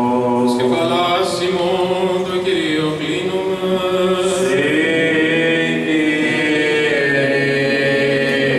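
Greek Orthodox Byzantine chant: men's voices singing a slow, ornamented melody over a low held drone note (the ison).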